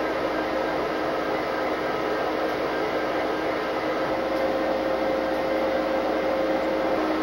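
Steady whirring hum with a few held tones, heard inside the cab of a Conrail SD60M diesel-electric locomotive: the unit's machinery running at idle.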